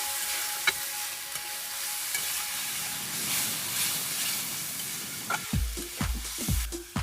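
Food sizzling as it fries in a pan, with stirring. About five and a half seconds in, dance music with a steady kick-drum beat starts.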